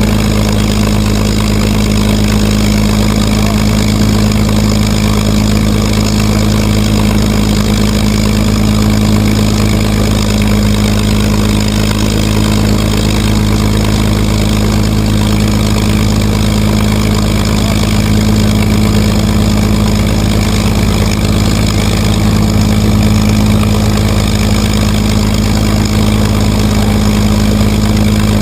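P-51 Mustang's Packard Merlin V12 engine idling steadily, a constant low drone.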